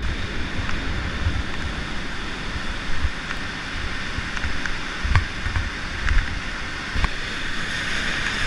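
Whitewater rapids rushing steadily, with gusts of wind rumbling on the microphone and a few sharp clicks.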